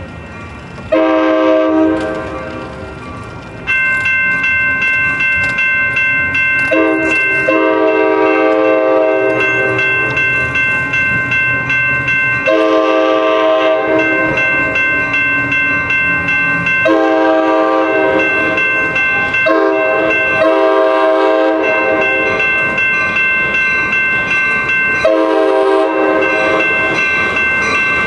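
Passenger train's multi-chime air horn blowing a long string of drawn-out blasts, one after another with only short breaks, as the train approaches on street-running track.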